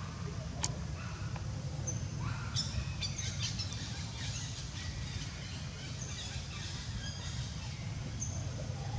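Small birds chirping and twittering in short flurries, busiest about three seconds in and again around six seconds, over a steady low rumble of outdoor background noise.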